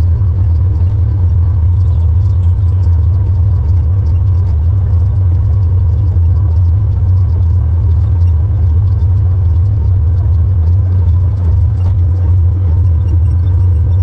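Case IH tractor engine running steadily under load while powering a square baler, a deep, unbroken drone heard from inside the cab, with a faint steady whine above it.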